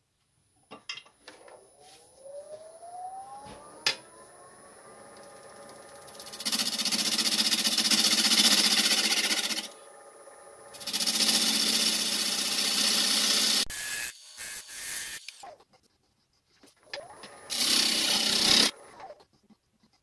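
Wood lathe motor spinning up with a rising whine, then humming steadily. A gouge cuts the spinning wooden bowl in two long, loud scraping passes and a shorter one near the end, with a few clicks between. The lathe is stopped by the end.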